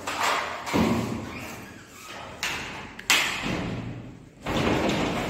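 A glass balcony door being unbolted and opened by hand: a series of knocks and thuds from the bolt, latch and frame, with one sharp click about three seconds in. A steadier rush of noise comes in near the end.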